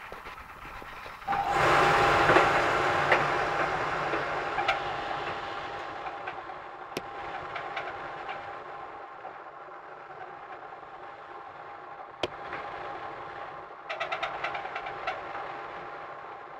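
Otsein Hoover OHNV175 tumble dryer running with the loud, hellish noise of its fault: the noise comes in suddenly about a second in, with a steady whine over a rough rumble, then slowly fades. Occasional sharp knocks follow, and a quick run of rattling clicks comes near the end.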